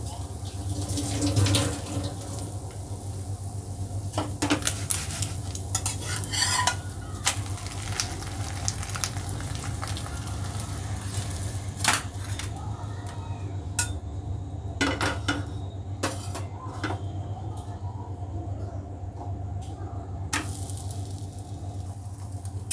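Egg frying in a non-stick pan on a gas stove, sizzling, with clinks and knocks of the pan and utensils. The sizzle drops away about halfway through as the pan comes off the flame and the omelette is plated, then picks up again near the end as fresh egg goes into the hot pan.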